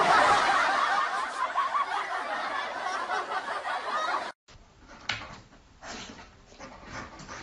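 Several people laughing and snickering together, continuous and fairly loud, until it cuts off abruptly about four seconds in. After that come only faint scattered taps and rustles.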